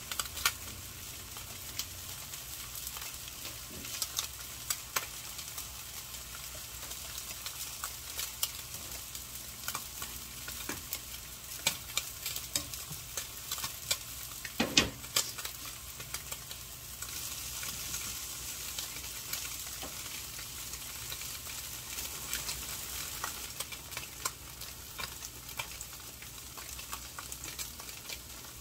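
Instant ramen boiling in broth in a small pot on a gas burner: a steady bubbling hiss. Metal tongs click and tap against the pot as the noodles are stirred, with one louder clack about fifteen seconds in.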